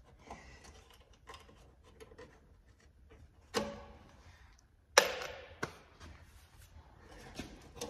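Small hard objects being handled on a workbench: light scattered clicks, a sharp knock about three and a half seconds in, and a louder sharp clack about five seconds in that rings briefly.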